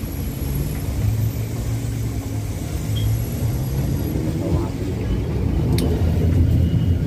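Steady low rumble aboard an electric canal passenger boat, with one sharp click about six seconds in.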